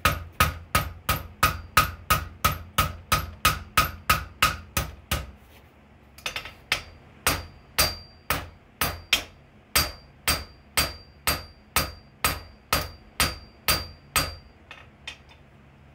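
Blacksmith's hand hammer striking hot steel held in tongs on an anvil, a steady run of blows about two and a half a second. After a brief pause with a few light clicks about six seconds in, the blows resume at about two a second, each with a high ring, and stop near the end.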